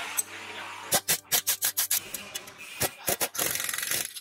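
Ratcheting wrench clicking as it tightens the nut on the lower strut-to-knuckle bolt: a quick run of sharp clicks about a second in, a few more near three seconds, then a fast buzzing ratchet rattle near the end. Background music plays underneath.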